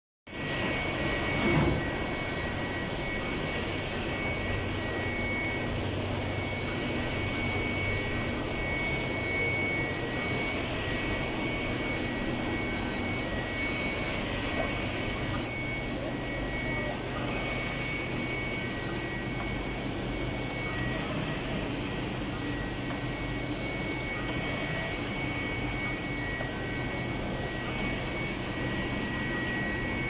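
Roll-fed printing machinery running with a steady hum and a steady high whine, with a faint short tick about every three and a half seconds.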